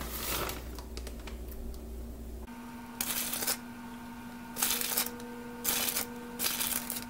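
A plastic bag of shredded cheese rustles in about four short bursts as handfuls are pulled out and sprinkled over the dip.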